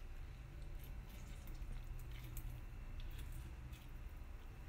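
Faint squishing of a lemon half squeezed by hand, its juice dripping onto vegetables in a steel bowl, with a few light ticks.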